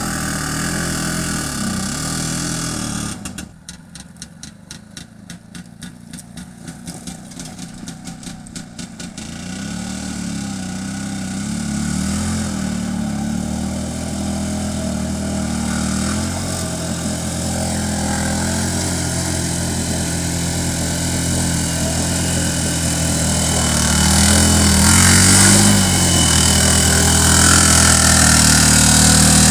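Engine of a homemade karakat all-terrain vehicle running. About three seconds in it drops to a low, evenly pulsing idle, then picks up again and runs steadily, getting louder near the end.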